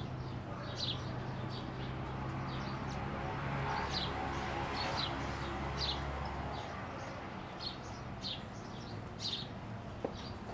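Sparrows chirping: short, separate high chirps, one or two a second, over a low steady hum that fades about two thirds of the way through.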